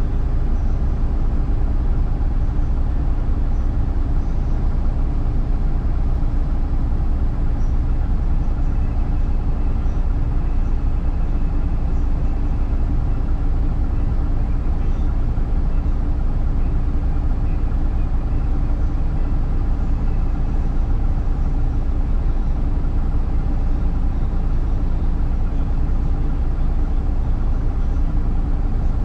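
City bus engine running with a steady low rumble, heard inside the cabin from the rear seat, its loudness unchanging throughout.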